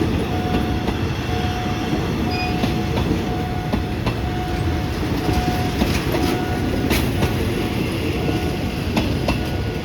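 Train passing close by, a steady rumble with wheels clicking over rail joints. A faint beep repeats about every three-quarters of a second throughout.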